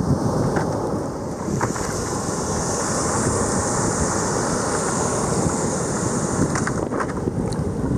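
Wind buffeting the microphone over the steady rush of ocean surf and breaking white water, with a brighter hiss of spilling foam through the middle.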